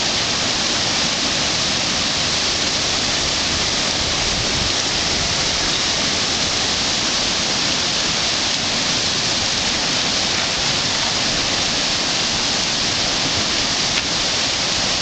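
Whitewater rushing steadily through a river rapid: the constant hiss of churning water at a standing wave.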